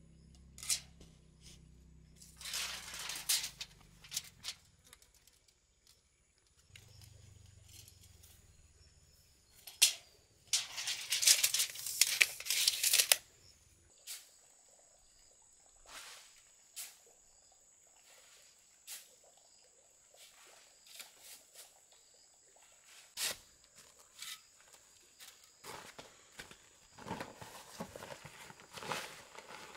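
Hand work in soil and sand. Tools scrape and rustle in bursts, loudest about a third of the way in, among scattered sharp clicks and knocks. Near the end, dry sand and cement powder are poured from a sack onto a plastic sheet.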